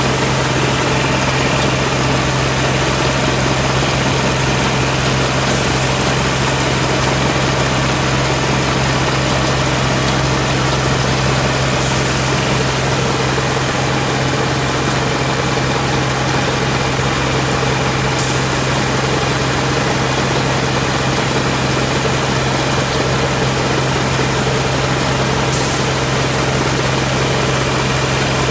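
Engine of a thermoplastic road-striping machine running steadily with a constant low hum as the machine lays a line.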